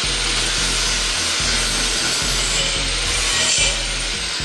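Electric arc welding on a steel-tube helicopter chassis frame: a steady, rough, hiss-like arc noise without breaks.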